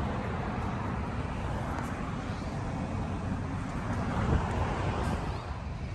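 Steady wind noise rumbling on the microphone, with an even hiss above it.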